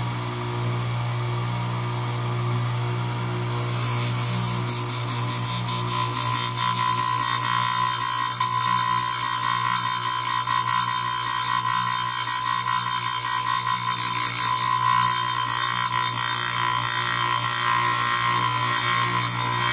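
Grinder motor running with a steady hum; about three and a half seconds in, the spinning grinding wheel bites into the steel chainsaw cutter tooth and a loud, high-pitched grinding screech sets in and holds steady as the tooth is square-ground.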